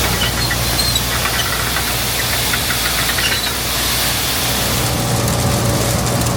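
A heavy vehicle's engine running steadily, a constant low hum under a rush of noise.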